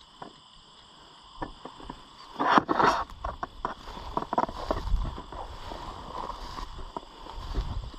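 Footsteps and rustling of someone wading through tall dry weeds and goldenrod, stems swishing and crackling against the legs, loudest in a burst about two and a half seconds in.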